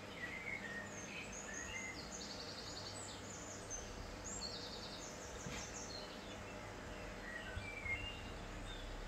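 Faint birds chirping in the background, with scattered short high chirps and quick trills, over a steady low hum.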